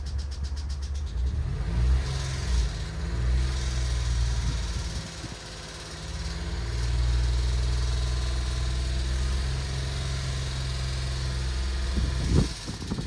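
Daihatsu Tanto Custom (L375S) 660 cc three-cylinder engine running, blipped up in revs a couple of times and settling back, an engine listed for an abnormal noise. Near the end there is a brief sharp sound and the engine note falls away.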